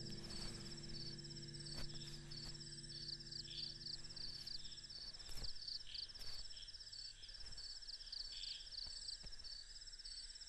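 Faint crickets chirping in steady, evenly repeating high trills, with a low held note fading out over the first half.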